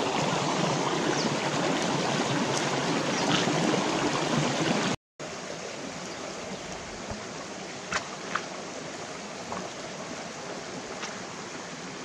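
Stream water running over rocks, a steady rushing. It cuts out briefly about five seconds in, comes back quieter, and a couple of sharp clicks come a few seconds later.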